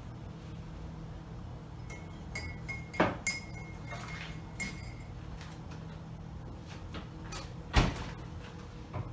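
Kitchen handling sounds: two sharp knocks, about three seconds in and near eight seconds in, with lighter clinks, over a steady low hum. A faint high tone sounds in short pieces from about two to five seconds in.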